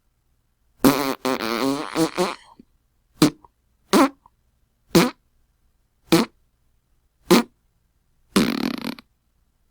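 A series of fart sound effects: a long one with a wavering pitch about a second in, then five short ones about a second apart, and a longer, noisier one near the end.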